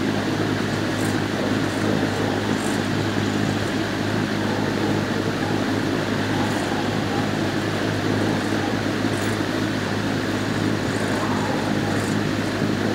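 Steady hum of a kennel building's ventilation system, a constant low drone under an even rush of air noise, with a few faint high ticks.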